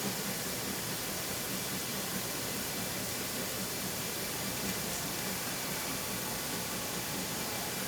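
Steady, even hiss of steam escaping from a food steamer.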